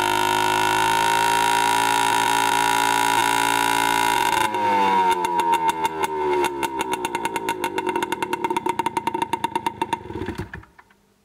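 Scooter engine running steadily through a Tecnigas aftermarket exhaust, then shut off about four and a half seconds in. It runs down with a falling pitch and slowing pulses, and stops near the end.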